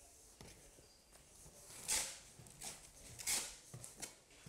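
Notched trowel scraping flooring adhesive across an OSB subfloor: a handful of faint swishing strokes, starting about halfway through.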